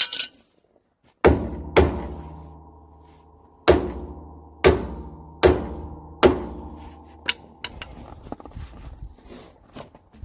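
Six heavy blows struck on a steel part while knocking it into line with a bolt hole, each leaving a ringing tone that dies away. Lighter clinks and taps follow near the end.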